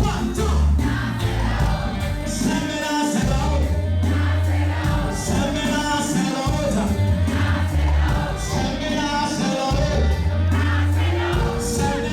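Live gospel band music with a choir singing over it, with long, heavy bass notes.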